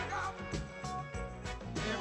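Recorded music with a steady beat of about four beats a second under a melodic line.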